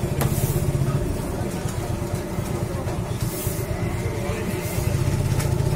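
Busy street ambience: a steady low rumble of road traffic, with indistinct voices in the background.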